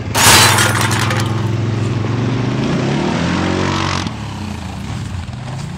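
ATV engine revving hard in snow, its pitch rising and falling, with a loud rushing hiss in the first second. About four seconds in, the revving eases back to a lower, steadier engine note.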